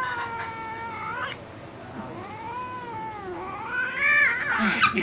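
Domestic cat yowling in protest at being held for a claw trim: three long calls that rise and fall in pitch, the last one louder near the end.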